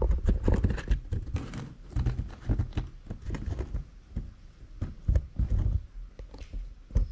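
Irregular knocks and clunks of hands handling the bench-vise spring-compressor rig and tools on the wooden workbench. There is a busy cluster in the first second and further knocks spread through, with a loud one near the end.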